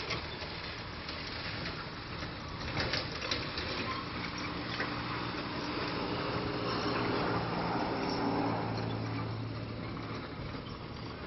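A constant rushing noise, with a steady low engine-like hum that comes in about four seconds in, swells, then fades near the end.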